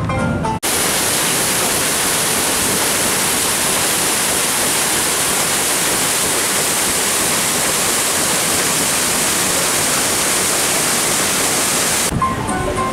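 Stern paddlewheel of a sternwheeler riverboat churning the river: a steady, even rush of splashing water that starts abruptly about half a second in and stops near the end.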